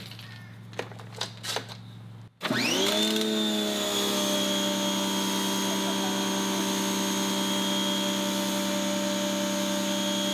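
A few handling clicks, then a pressure washer's motor starts suddenly a little over two seconds in. Its whine rises quickly to speed and then runs steady as the trigger is held.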